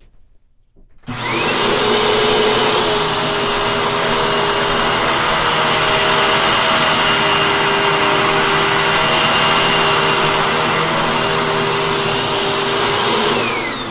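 Hoover Tempo Widepath upright vacuum cleaner switched on about a second in, its motor and wooden brush roll running steadily and loudly over carpet. It is switched off near the end, its whine falling as it winds down.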